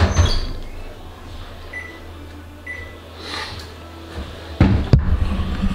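Two short, high electronic beeps about a second apart as a kitchen timer is set for about another 4 minutes. A steady low hum runs underneath, with a knock at the start and a few thuds near the end.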